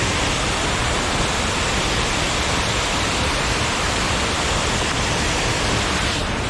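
Steady rush of water from a waterfall, an even loud hiss with no breaks.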